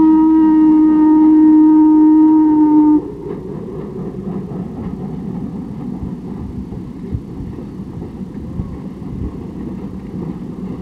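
Steam locomotive whistle blowing one long steady note that cuts off abruptly about three seconds in. It is followed by the quieter rumble of the passenger train running, with occasional low thumps, on a hissy Super 8 film soundtrack.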